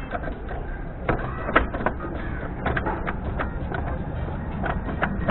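Clicks and knocks from a Bajaj Avenger motorcycle's gearbox and frame as the dead bike is rocked back and forth to work it up into top gear for a bump start, over a steady low rumble.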